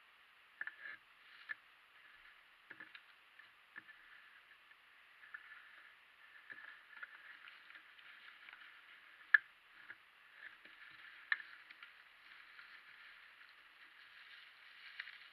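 Plastic bags and paper packaging being handled and crinkled, with scattered clicks and taps of small parts, two sharper ones about nine and eleven seconds in.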